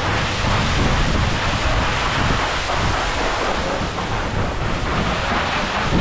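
Creek water rushing between boulders in a steady hiss, with wind buffeting the microphone in low, uneven rumbles.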